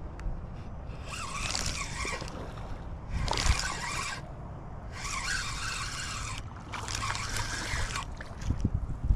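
Spinning reel cranked in four bursts of about a second each, whirring as the line is reeled in.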